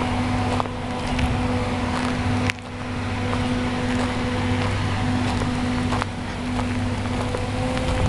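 A steady, low engine hum with a constant pitch, over a faint hiss. About two and a half seconds in there is a sharp click and the level dips briefly.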